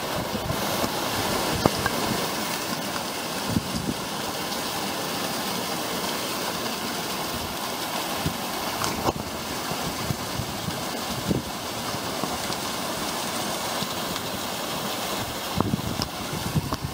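Steady rushing of a mountain stream cascading over boulders and small waterfalls, with a few brief sharp knocks.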